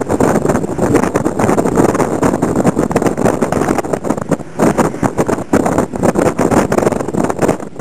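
Road noise and wind rush from a moving vehicle, buffeting the camera microphone in a loud, gusty, constantly fluctuating roar.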